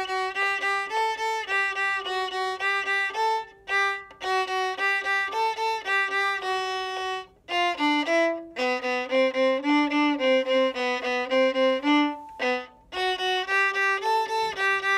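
Solo viola bowed at a steady tempo of about 110 beats a minute, playing a tune in short separate notes. Brief breaks fall between phrases, and the middle phrase drops to lower notes.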